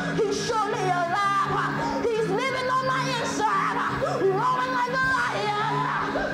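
A boy's voice singing a gospel line into a microphone, sliding between held notes, over church music with low chords sustained underneath.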